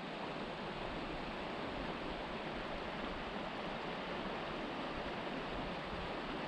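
Steady rush of flowing river water, an even hiss with no rhythm or change.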